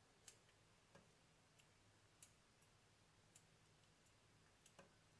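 Near silence with a faint low hum and a handful of faint, irregular clicks and ticks: handling noise from the chicken carcass and the dissecting instruments being worked by gloved hands.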